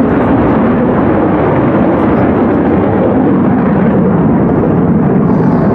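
Military jet aircraft passing overhead in a display: a loud, steady jet-engine noise.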